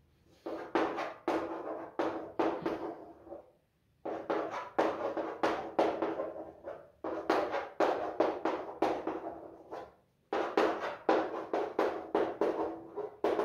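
Chalk drawing on a blackboard: quick strokes and taps as hexagonal rings are sketched, in about four bursts of a few seconds each with short pauses between.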